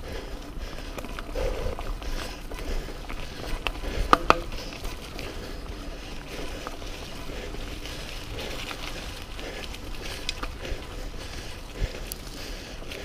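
Mountain bike rolling over a dirt trail, with steady rattling and small clicks from the bike. About four seconds in comes a short squeal of the brakes, the loudest sound.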